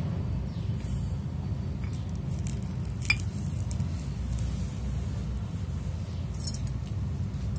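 Cooking utensils clinking, with one sharp clink about three seconds in and a short run of lighter clinks near the end, over a steady low rumble.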